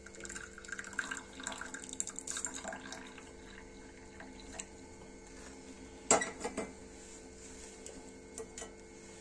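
Hot tea poured in a thin stream from a metal saucepan into a ceramic cup, splashing for about three seconds. About six seconds in, a short, loud metal clatter as the saucepan is set down on the gas stove.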